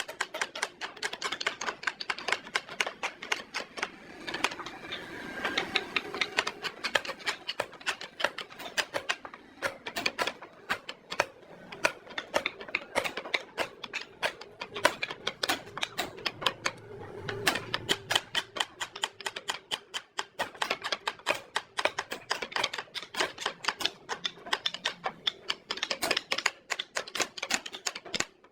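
A fast, uneven run of sharp taps and clicks, several a second, typical of hand tools striking wood in a small workshop, over a faint steady hum.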